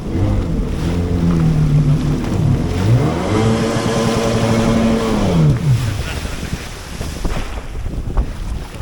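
Motorized watercraft engine revving: its pitch climbs about three seconds in, holds high for a couple of seconds, then drops away near six seconds, leaving a steady rush of wind and water.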